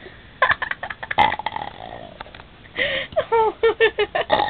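A voice making short nonverbal vocal noises, with a quick run of about eight short pitched sounds in the second half.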